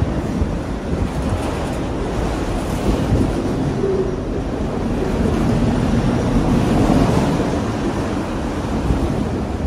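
Freight train of autorack cars rolling past right alongside: a steady rushing rumble of steel wheels on rail and the cars' sheet-metal sides.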